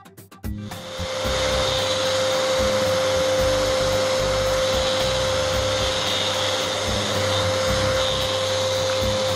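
Random orbital sander starting up about half a second in, then running steadily with a constant hum and hiss as its pad sands laminated ash-and-walnut table legs before finishing. Very loud.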